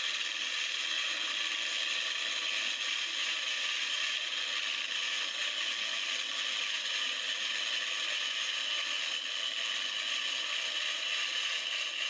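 Carbide-tipped Hercules turning tool cutting resin on a maple burl bowl spinning on a wood lathe, heard in real time. A steady, even scraping hiss over the lathe's running motor, with no change throughout.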